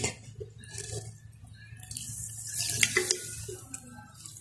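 A hand swishing raw shrimp around in a bowl of Sprite: small splashes of liquid, with the soda fizzing faintly.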